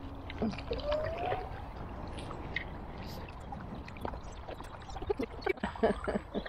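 Paddles pulling through calm canal water, with gurgles, trickles and drips from the strokes.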